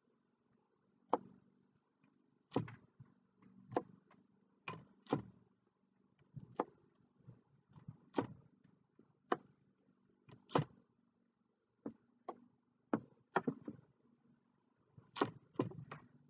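A small paint-loaded balloon dabbed again and again against a painting on an easel, printing flower heads: a string of short, sharp taps about once a second, unevenly spaced, some in quick pairs and bunching together near the end.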